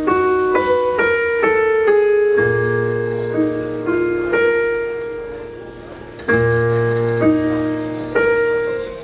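Live band music led by a keyboard: a slow line of held notes stepping to a new pitch about twice a second over a sustained low bass note. The sound fades away around five seconds in, then fresh notes and the bass enter again just after six seconds.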